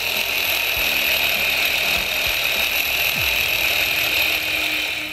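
Small model Stirling engine running fast, belt-driving a small DC motor that works as a generator, with a steady mechanical whir. It cuts off suddenly near the end.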